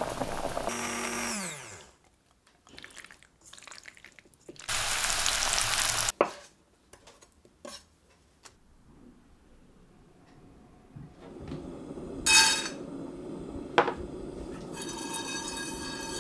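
A run of kitchen sounds. First a blender or food processor whirring and spinning down, its pitch falling as it stops. Then a loud burst of hiss about five seconds in, scattered sharp clicks and knocks, and a steadier hiss with brief ringing tones in the last few seconds.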